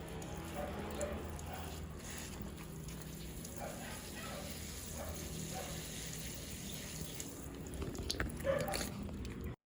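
Water running steadily, as from a tap into a sink; the sound cuts off abruptly near the end.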